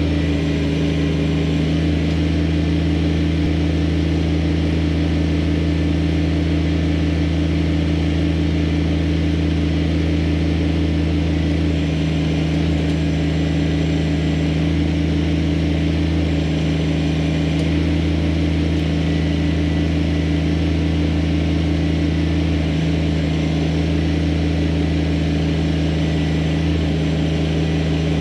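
Kubota BX23S subcompact tractor's three-cylinder diesel engine running at a steady speed, a constant low hum with no revving.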